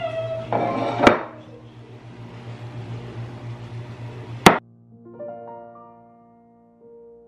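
Two sharp knocks of a wooden rolling pin against the table while pie crust dough is rolled out, the second one louder, over a steady low hum. Soft piano music comes in right after the second knock.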